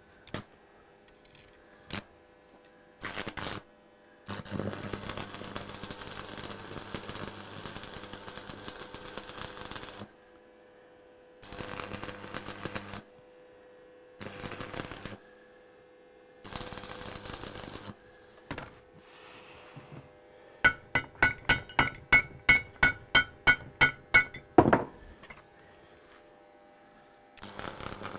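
Arc welding on a disc harrow's broken pin: several bursts of arc crackle, each one to several seconds long, with pauses between them. Near the end come about fifteen quick metal-on-metal strikes, roughly four a second.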